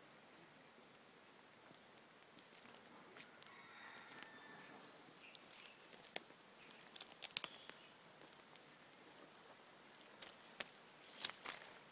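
Quiet rainforest ambience with a few faint bird chirps. Sharp crackles and clicks of footsteps on twigs and leaf litter, clustered about seven seconds in and again near the end.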